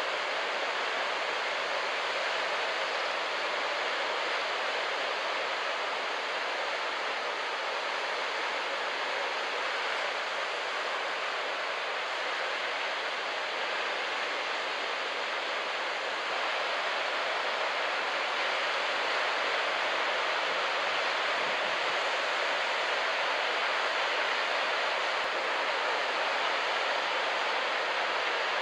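Steady wash of beach-break surf, an even rushing noise that gets a little louder about two-thirds of the way through.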